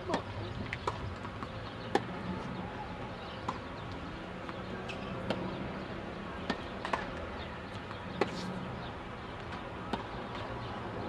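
Sharp pops of a tennis ball being struck by rackets and bouncing on a hard court during a rally, coming irregularly a second or more apart over a steady low background hum.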